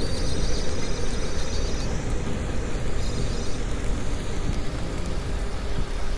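Underwater recording of a ship's engine and propeller: a steady low rumble with no distinct events.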